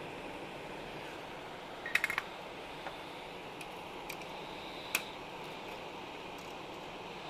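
Flush cutters snipping resistor leads on a circuit board: a quick run of four or five sharp clicks about two seconds in, then a few single clicks, over a steady background hiss.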